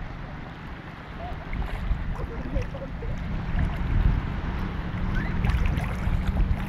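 Wind buffeting the microphone, a heavy, choppy low rumble, over light sloshing of shallow seawater around a person lying in it.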